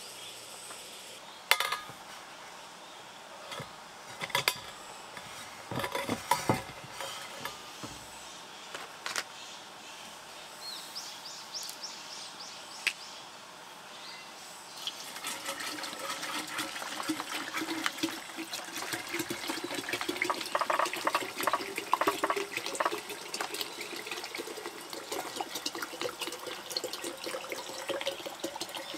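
A few knocks and clicks of gear being handled, then, about halfway through, water pouring steadily into a container, its pitch slowly rising as the container fills.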